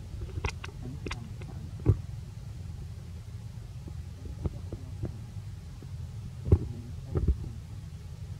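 Low steady rumble with a few scattered soft clicks and thumps, the loudest about six and a half seconds in; no monkey calls.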